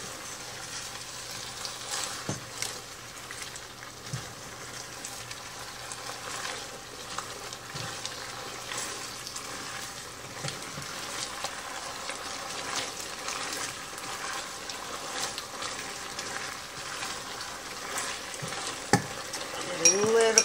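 Cubed chicken simmering and sizzling in a skillet in a thick honey garlic sauce, which is being thickened with tapioca starch slurry. It is stirred with a utensil that clicks against the pan now and then.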